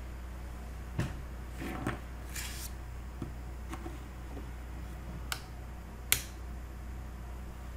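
Steady low hum broken by a handful of small, sharp clicks and brief rustles, the sharpest click about six seconds in.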